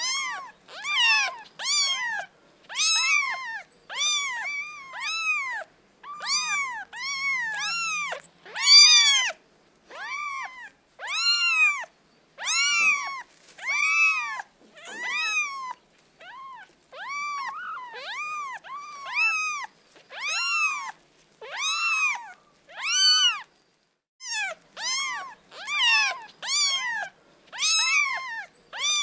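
Kittens mewing: a steady string of short, high-pitched mews, each rising then falling in pitch, about one or two a second.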